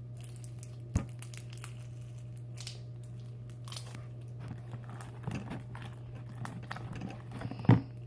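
Sticky slime being kneaded by hand: soft crackling and squishing with many small clicks. There is a sharp knock about a second in and a louder thump near the end, over a steady low hum.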